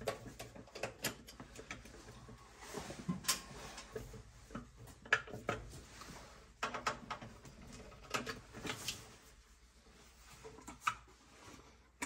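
Hand tools and metal parts being handled on a Carlin oil burner as it is opened up to reach the nozzle and electrodes: irregular clicks, scrapes and knocks of screwdriver on metal housing.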